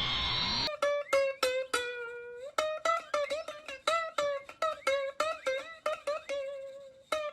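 Music: a plucked string melody of quick notes, some sliding in pitch, coming in under a second in after a short stretch of sweeping, gliding tones.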